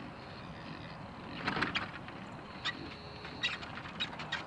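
Distant vehicle engine running low and steady as it tows a chicken coop, with short rattles and clanks about a second and a half in and again several times near the end.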